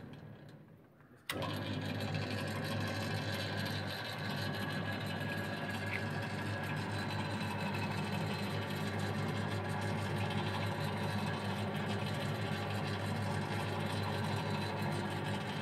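SUNMIX SUN 6 two-speed spiral dough mixer switched on about a second in: its electric motor starts at once, then runs steadily with a low hum while the spiral hook turns in the empty bowl.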